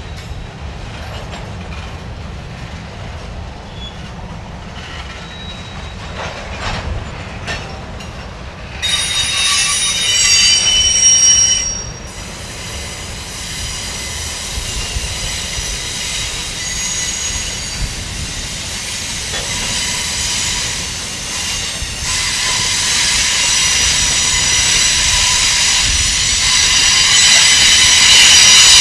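Freight cars of a Union Pacific mixed freight rolling past: a steady low rumble with faint clacking of wheels over the rail. About nine seconds in comes a burst of high-pitched wheel squeal lasting about three seconds. The squeal builds again later and grows loudest near the end.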